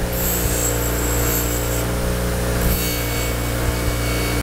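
Delta bench grinder running with a steady motor hum while a small forged steel piece is pressed against the spinning wheel, adding a high grinding whine. The whine drops out for about a second a little before halfway, then comes back as the steel is pressed on again.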